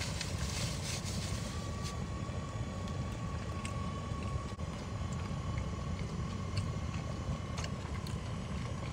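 Steady low rumble of an idling vehicle, with a faint steady whine and a few light clicks.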